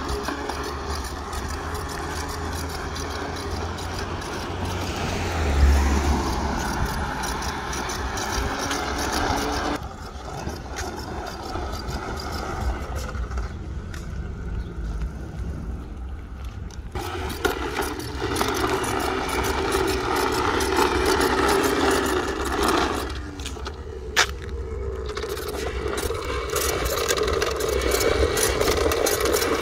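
Toy push lawn mower rolling over pavement, its plastic wheels and body rattling and scraping steadily, with a sharp click about 24 seconds in.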